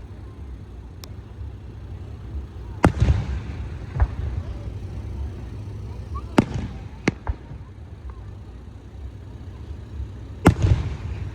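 Aerial fireworks shells bursting: a loud bang about every three to four seconds, some followed by a smaller second bang, over a low rolling rumble between them.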